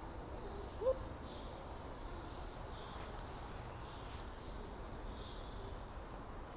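Faint outdoor background: a steady low rumble, with one short rising chirp about a second in and a couple of brief high scuffs.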